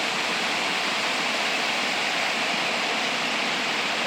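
River water rushing, a steady, unbroken sound.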